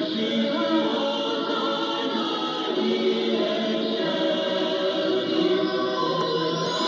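Choir singing a hymn in a Mass broadcast, heard over longwave AM radio through a Yaesu FRG-8800 receiver, with a faint rising whistle near the end.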